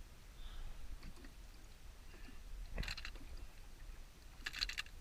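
Faint handling noises from weighing a caught fish on a hand-held scale: two brief clusters of small clicks and rattles, about three seconds in and again near the end, over a low background rumble.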